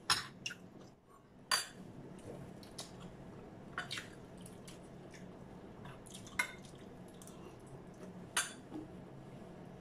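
Metal spoons clinking against ceramic plates and bowls during a meal: a handful of separate sharp clinks, spaced a second or two apart.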